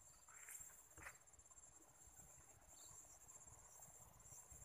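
Faint, steady high-pitched insect trilling, with a light low rumble beneath it.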